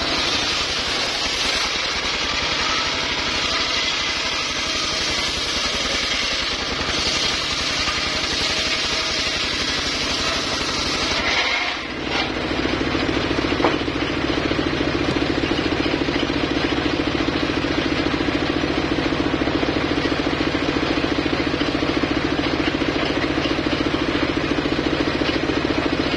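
Homemade engine-driven circular saw running. For the first eleven seconds or so a loud hiss of the blade cutting through timber rides over the engine. After a brief dip about twelve seconds in, the rig runs on steadily with a humming engine note and without the cutting hiss.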